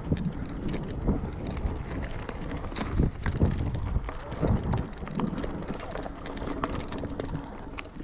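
Iron Horse Unity 3.2 mountain bike rolling over a bumpy dirt singletrack: a steady rumble of tyres and wind on the microphone, with many small rattles and clicks from the bike and a few louder knocks over bumps.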